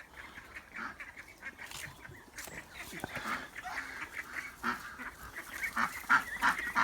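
A flock of birds calling: many short, overlapping calls that grow busier and louder over the second half.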